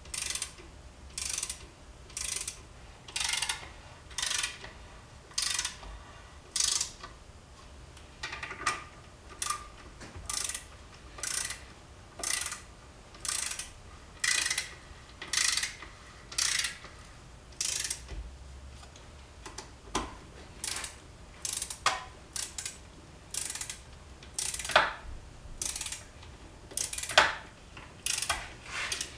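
Hand ratchet wrench clicking in short bursts about once a second, the pawl ratcheting on each back-swing of the handle as crankcase bolts are run in. A few sharper clicks sound in the second half.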